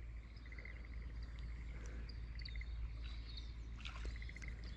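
Frogs calling in short pulsed trills, repeated roughly once a second, with thin bird chirps higher up.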